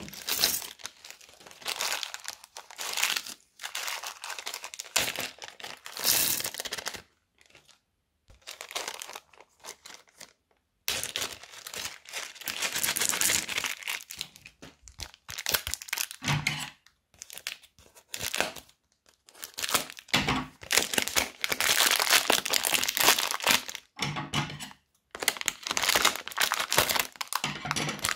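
Small plastic zip bags crinkling as they are handled, opened and emptied, in irregular bursts with brief pauses.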